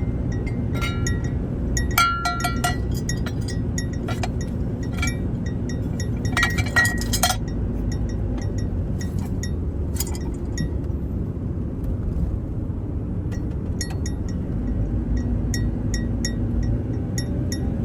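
A small bell jingling in short clusters with the motion of a moving vehicle, loudest about two seconds in and again around six to seven seconds and ten seconds. Under it runs the steady low rumble of the vehicle on the road.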